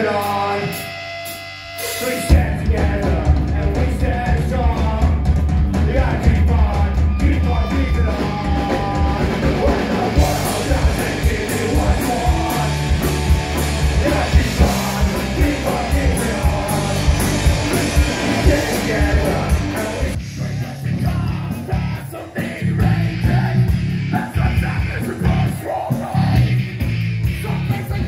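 Live punk rock band playing: distorted electric guitars, bass and drums with sung and shouted vocals, kicking in at full volume about two seconds in after a quieter opening.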